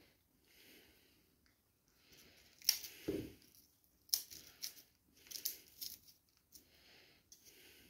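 Garlic cloves being peeled and trimmed with a small kitchen knife: scattered clicks, scrapes and papery crackling of the skins, with a dull knock about three seconds in.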